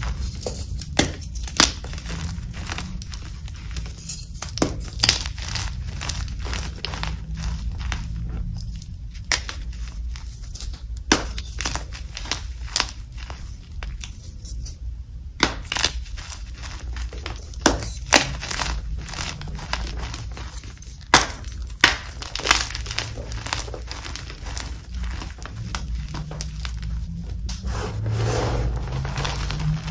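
Dip-dyed Magking gym chalk blocks crushed and crumbled by hand: irregular sharp crunches and snaps over a soft, dry crumbling of chalk chunks and powder. The chalk is air-dried and crunchy yet soft.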